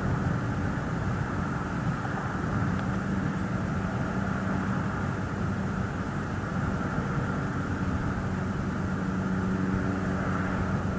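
A steady engine drone with a low, even hum.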